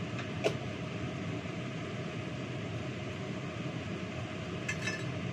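Kitchenware handled at a sink: one sharp clack about half a second in and a few light clinks near the end, over a steady hiss of background noise.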